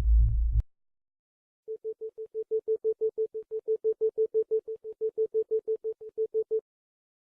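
Isochronic tone: a single mid-pitched electronic tone switched on and off at an even rate of about six pulses a second, for about five seconds after a short gap. At the very start the tail of a deeper pulsing tone cuts off.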